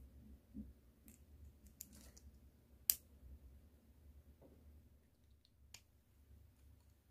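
Small clear plastic miniature parts being handled and pressed together, giving a few separate clicks, the sharpest about three seconds in.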